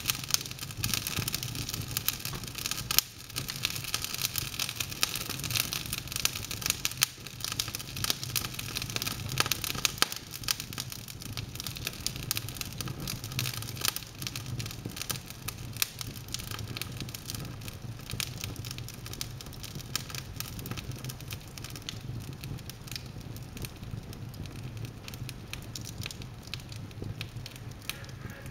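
Wood log fire in an open fireplace crackling, with a constant stream of sharp pops and snaps that are busiest in the first half, over a steady low hum.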